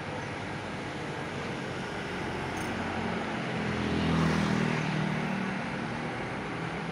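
Steady traffic noise from cars running on a multi-lane toll road. About four seconds in, one vehicle passing by swells to the loudest point with a low engine hum, then fades back into the traffic.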